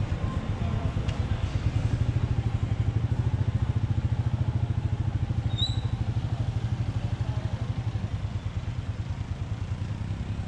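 Royal Enfield Meteor 350's single-cylinder 349 cc engine running at low revs, an even thumping beat of about ten pulses a second.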